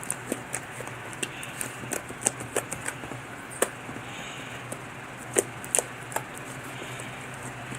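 Slime being kneaded and squeezed by hand while glitter is mixed in, making irregular sharp clicks and pops from trapped air, a few of them much louder, over a steady low hum.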